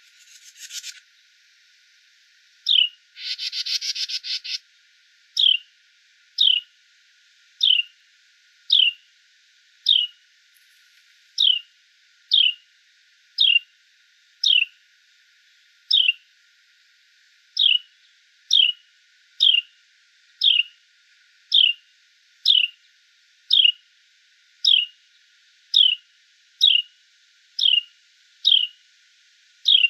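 A small wild animal's sharp chip call, one short downward-sliding note repeated about once a second, steady and monotonous. Near the start there is a brief rising buzz, followed by a harsh buzzy trill lasting about two seconds.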